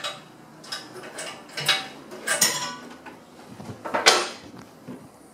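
A number 19 ring spanner clinking and scraping on the fitting as a new boiler safety valve is tightened: a handful of short metal clinks, the loudest about four seconds in.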